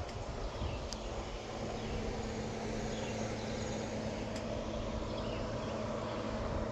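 Steady outdoor background hum, with faint short chirps from birds or insects now and then.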